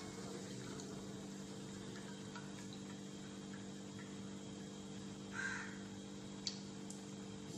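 A low steady hum, with one short bird call about five seconds in and a sharp click about a second later.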